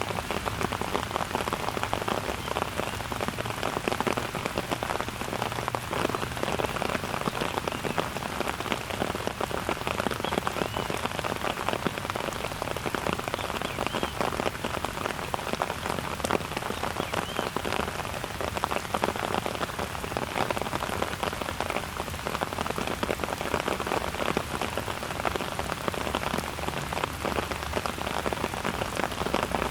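Steady rain falling, a dense even spread of countless small drop impacts with no let-up.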